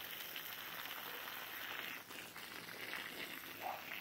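Water spraying from a garden hose onto soil and plants: a steady hiss that dips briefly about halfway through and then carries on.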